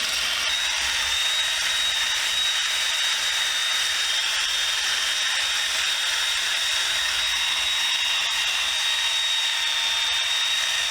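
Power tool running steadily with a wire wheel, stripping old paint from a sheet-metal socket set box, with a steady high whine over the scrubbing noise.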